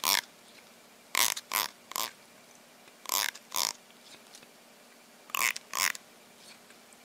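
Plastic comb teeth strummed with a finger: short zipping strokes, mostly in pairs, a second or two apart.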